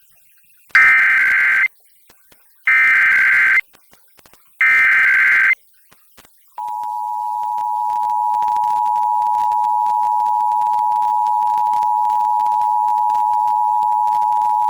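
Emergency Alert System header opening a Required Monthly Test: three bursts of SAME data tones, each about a second long. About six and a half seconds in, the EAS two-tone attention signal begins: a steady two-note tone.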